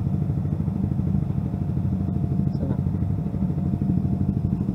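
Motorcycle engine idling steadily, with a rapid, even pulsing.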